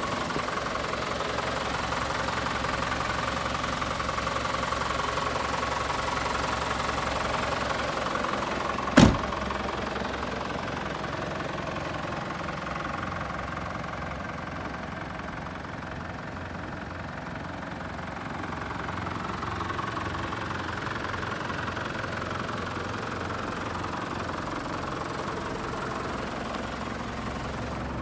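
Mitsubishi Rosa minibus's 4M51 four-cylinder diesel engine idling steadily with its diesel clatter. A single sharp knock sounds about nine seconds in.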